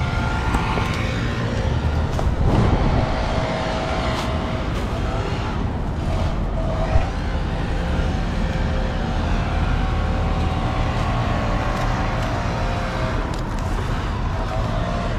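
A small engine running steadily at an even speed throughout, with a single short knock about seven seconds in.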